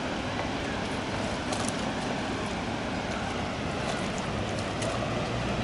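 Steady rushing noise of water and wind, with a few faint splashes from a hooked carp thrashing at the surface.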